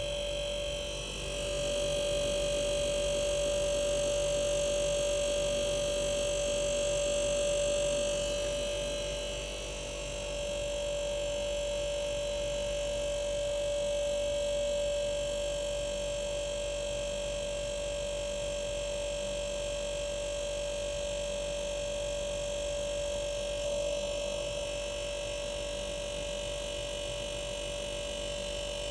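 Arçelik 5233 refrigerator's compressor running, giving a steady humming tone.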